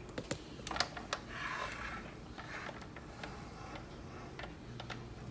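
Scattered light clicks and a brief rustle of handling as a straightened paper clip is worked into the opened Keurig coffee maker to press the reset button on its thermal cutoff.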